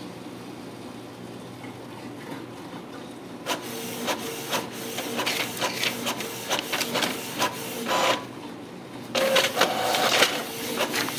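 Canon inkjet printer printing a page, starting a few seconds in: a steady motor whine under rapid clicks and short whirring passes of the print head. After a brief pause it runs louder near the end as the printed sheet feeds out.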